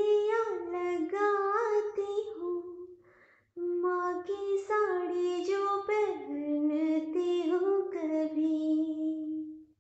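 A high solo voice singing a slow Hindi song in long drawn-out phrases that slide between notes. It breaks off briefly about three seconds in, then sings a second long phrase that ends on a held low note.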